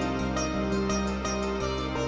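Instrumental background music: a melody played over sustained low notes that step in a steady pulse.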